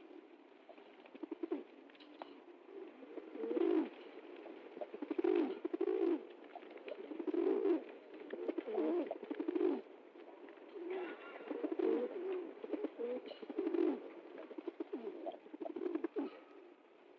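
Pigeons cooing: a run of low coos, one swelling up every second or two.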